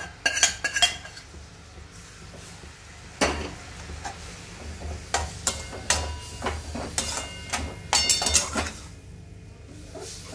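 A spatula scraping boiled whole green gram out of a steel vessel into a pan, then a ladle stirring the gram into sugar syrup, with irregular clinks, knocks and scrapes against the metal pan.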